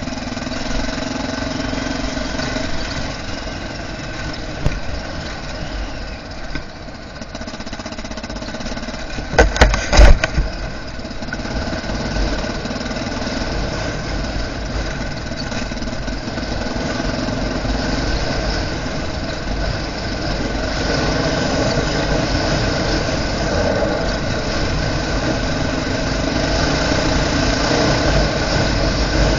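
Honda NX650 Dominator's single-cylinder four-stroke engine running steadily under way, growing a little louder in the second half, with a few loud knocks about nine to ten seconds in.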